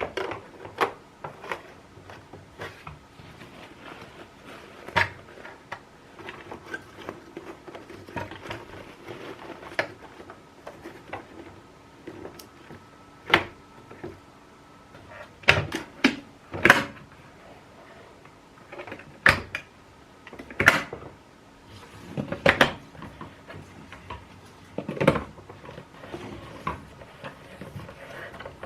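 Irregular knocks and clicks of hard parts being handled and fitted together, with the loudest knocks coming more often in the second half.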